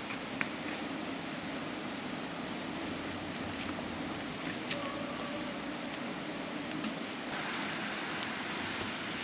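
Steady outdoor background noise with short, high, rising bird chirps repeated every second or so, and a few faint clicks.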